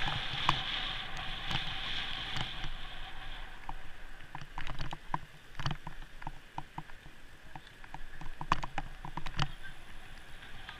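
Bicycle ride: a steady rush of wind and tyre noise that eases about three and a half seconds in, followed by scattered clicks and knocks from the bike as it slows and turns.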